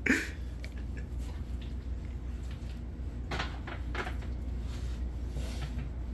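Kitchen handling noises over a steady low hum: a sharp knock at the start, a couple of clicks and knocks about halfway through, and a brief rustle near the end, like a cupboard or door and utensils being moved.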